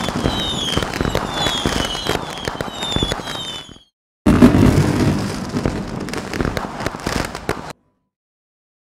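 Fireworks sound effect: dense crackling and popping with a series of short falling whistles. It cuts out briefly about four seconds in, starts again with crackling, and stops shortly before the end.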